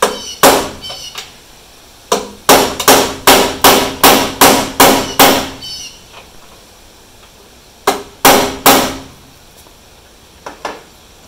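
Hammer driving an oversized Torx bit into a stripped 6 mm Allen screw head on a 1973 VW bus's steel rear hatch: sharp metallic blows that ring. A quick run of about ten blows at roughly three a second, then, after a pause, three more.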